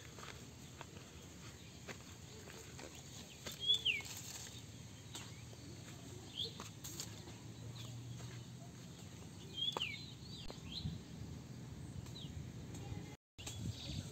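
Outdoor rural ambience with birds giving short, down-slurred chirps a few times, the loudest about 4 and 10 seconds in, over a steady low background hum. The sound cuts out briefly near the end.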